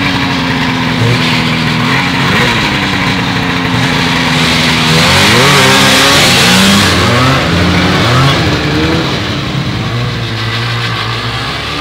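Vintage two-stroke snowmobile engine under way, running steadily at first, then revving up and down several times from about the middle, loudest with a hissing rush a little past the middle, and settling to a steadier run near the end.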